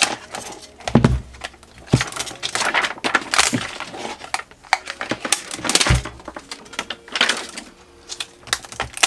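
Hand-handling of an opened e-bike battery pack on a workbench: irregular rustling, crinkling and small clicks, with a few dull knocks about a second in, at two seconds and near six seconds.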